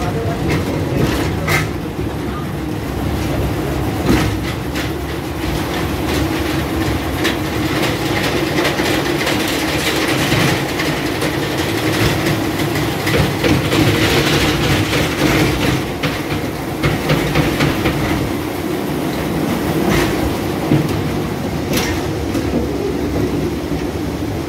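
Small mine-train ride cars rolling along their track, a loud steady rumble and rattle with a few sharp clacks from the wheels and couplings.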